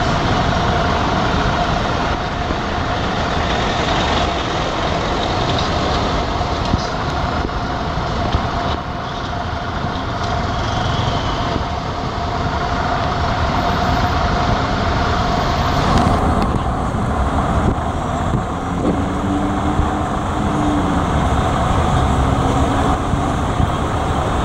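Steady engine noise with a constant drone throughout, with a lower engine note joining for a few seconds about two-thirds of the way through.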